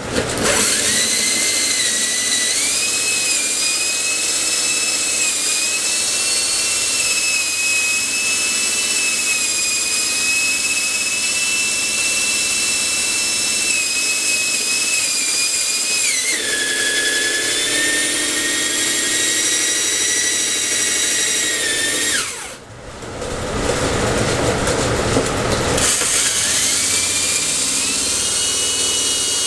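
Handheld electric power tool with a high-pitched motor whine, running a bit into a clamped block of wood. The pitch drops partway through as the bit loads up in the cut. About 22 seconds in it briefly cuts out, then runs rough for a few seconds before winding back up to speed.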